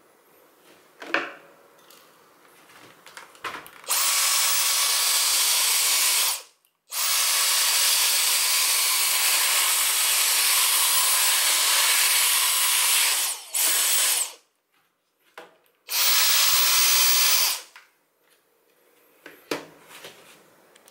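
Handheld vacuum cleaner sucking up sawdust from a freshly drilled wooden board: a loud, steady hiss that runs in several spells, cutting out briefly and starting again. A few light knocks come before it starts and after it stops.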